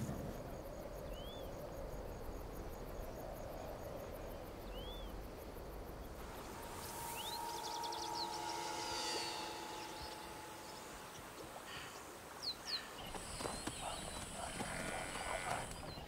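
Wild outdoor ambience: insects buzzing and ticking, with a few short bird-like chirps. A high steady insect buzz comes in during the last few seconds.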